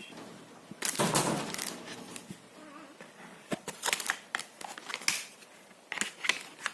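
Plastic packaging and play-gym parts being handled: a burst of crinkling rustle about a second in, then scattered clicks and crinkles as pieces are moved about.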